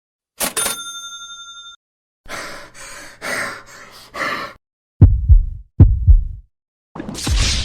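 A string of separate sound effects: a sharp strike with ringing tones about half a second in, then four noisy swishes, then two heavy low double thumps like a heartbeat, and near the end a rising rush of noise.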